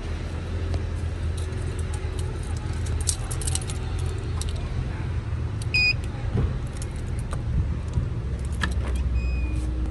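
Keys jangling in two short bouts over a steady low rumble, with two short high electronic beeps a few seconds apart.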